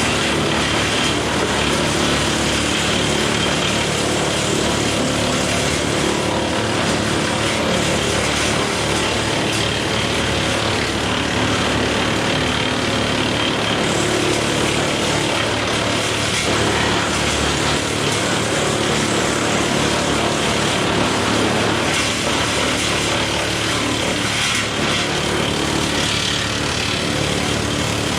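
Woodmaxx WM8 PTO-driven wood chipper running steadily off a John Deere 4066R diesel tractor, the tractor engine and the spinning chipper mixing into one constant loud mechanical sound.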